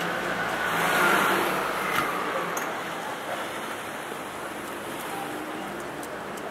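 Road traffic on a busy city street, a steady rush of noise that swells as a vehicle passes about a second in.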